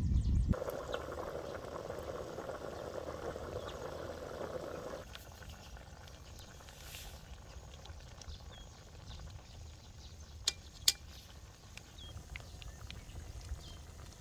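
Pork ribs bubbling and sizzling as they simmer in their juices in a wok, a denser, louder sizzle for the first five seconds, then a quieter bubbling. Two sharp clicks come a little after ten seconds in.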